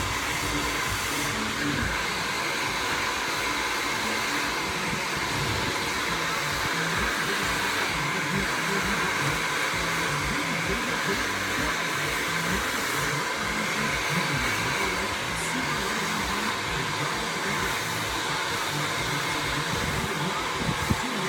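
Hair dryer blowing steadily, an even, unbroken rush of air.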